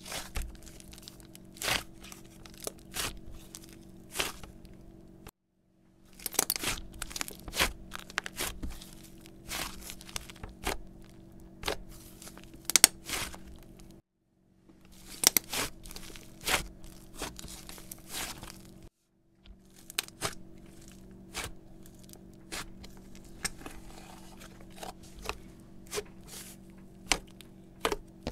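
Thick slime being stretched, folded and poked by hand on a stone countertop, giving frequent sharp clicks and pops as trapped air bursts. Three times the sound cuts to dead silence for about half a second to a second.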